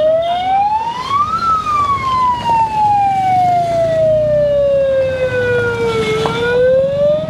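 A wailing siren: one tone rises for about a second and a half, falls slowly for nearly five seconds, then starts rising again near the end, over engine and traffic noise.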